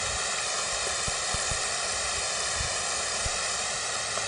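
Water spraying at close range, a loud, steady hiss, with a few short low bumps under it.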